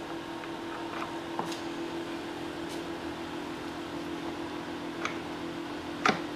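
A steady hum, with a few faint clicks and light knocks of metal as the two halves of a lawn mower transaxle case are worked together over a shaft that is hanging up and not fully meshed. A brief, louder sound near the end.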